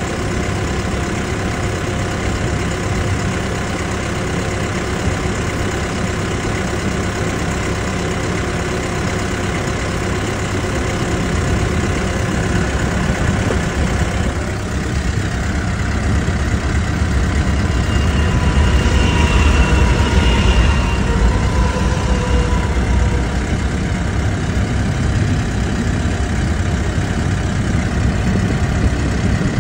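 Engine idling steadily, growing somewhat louder for a few seconds about twenty seconds in.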